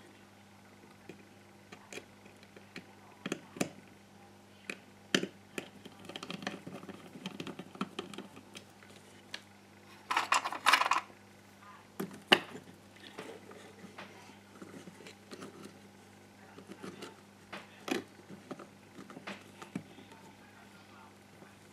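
Small clicks, knocks and rattles of hands handling a GHD hair straightener's plastic housing and small tools on a workbench, irregular throughout, with a brief burst of scraping and rattling about ten seconds in and a sharp click just after. A faint low hum runs underneath.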